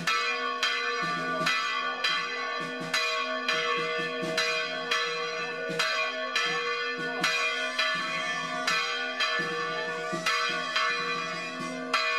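Church bells ringing in a fast, even run of strokes, about two a second, the ringing of each stroke running into the next.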